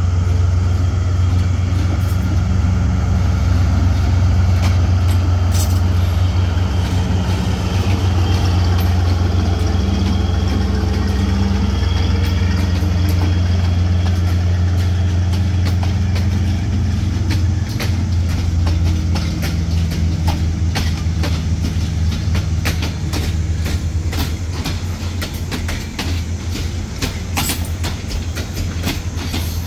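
Diesel train running with a loud, steady low engine hum. Past the midpoint, wheels click over rail joints more and more often as the train rolls.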